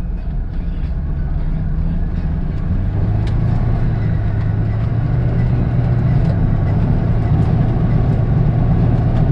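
Volvo 780 turbo engine and road noise heard from inside the cabin as the car accelerates under boost. The low engine drone grows louder about three seconds in and then holds steady.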